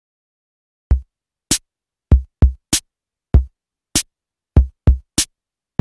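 Background music: a sparse drum-machine beat of about ten separate hits. Deep kick hits alternate with short, sharp, high hits, with silence between them.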